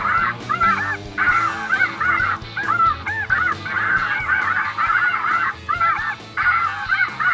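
A large flock of light geese calling, many short overlapping honks in a steady din.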